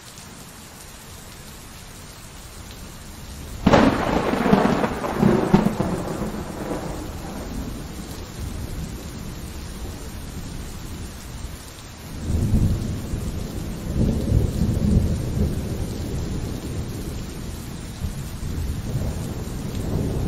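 Steady rain with thunder. A sudden sharp thunderclap comes about four seconds in and rumbles away over several seconds. A second long rolling rumble starts about twelve seconds in, and a fainter one comes near the end.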